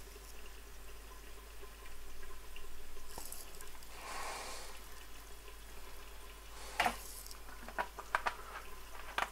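Cooking oil pouring in a thin stream into a nonstick wok and settling, followed by a few light, sharp clicks of handling in the second half.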